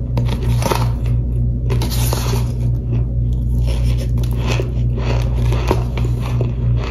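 Close-up crunching and chewing of baked cornstarch chunks (toasty powder), with irregular sharp crunches a few times a second over a steady low electrical hum.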